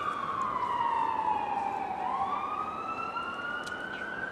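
Emergency vehicle siren wailing: its pitch slides slowly down for about two seconds, then climbs back up again.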